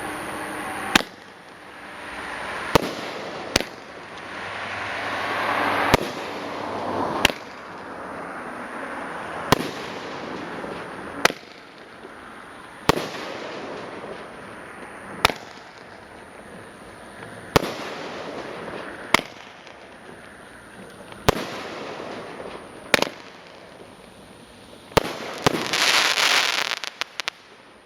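Aerial peony firework shells bursting one after another, a sharp bang every second and a half to two and a half seconds, about fifteen in all, over a hissing background. Near the end a burst of dense crackling follows two quick bangs.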